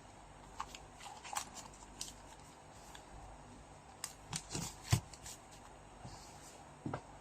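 Collectible trading cards and their packaging being handled: scattered light rustles and clicks, busiest about four to five seconds in.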